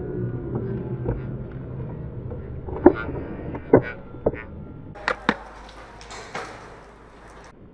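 Airsoft skirmish fire: the ringing of a shot fades away in the first second, then about seven short, sharp snaps and clicks come at irregular intervals, the loudest around three and almost four seconds in.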